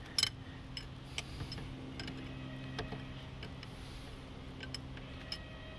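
Light metallic clicks and ticks from a wrench working a brass bleed fitting on a SeaStar hydraulic steering cylinder, closing it off after bleeding. The sharpest click comes about a quarter second in, then a handful of fainter ticks, over a steady low hum.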